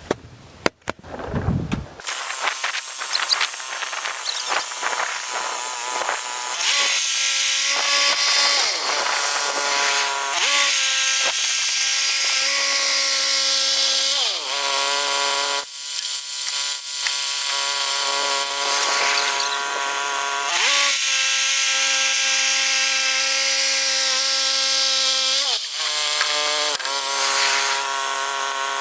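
Woodland Mills HM122 portable bandsaw mill running and sawing through a large pine log, a loud, steady whine with a strong hiss that starts up about two seconds in. The pitch dips and recovers several times.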